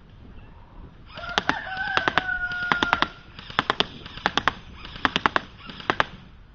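DPMS Panther airsoft rifle firing, sharp snapping shots in quick bursts of two to four, about every second. About a second in, a rooster crows once in the background, one long call lasting about two seconds.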